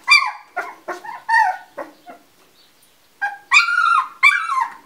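Two-week-old Labrador retriever puppies crying: a run of short cries, a pause of about a second, then longer cries near the end.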